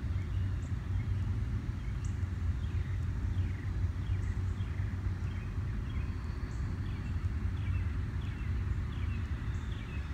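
Small birds chirping, a scatter of short falling chirps from about two seconds in, over a steady low rumble.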